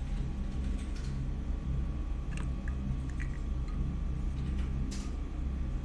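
A few light clicks and taps as a light-up LED cup is handled and set down on a table beside a glass of water, with one sharper click near the end, over a steady low hum.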